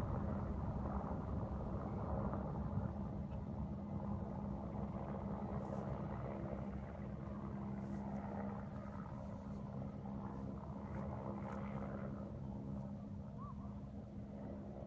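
Low rumble from a power-station chimney collapsing under demolition, fading slowly, with a steady low hum underneath.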